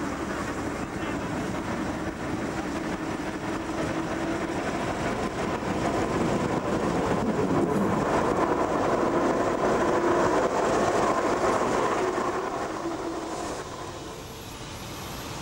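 Four-wheel Ruston diesel shunter running along the track, its engine and wheels on the rails growing louder to a peak about two-thirds of the way through, then fading off near the end.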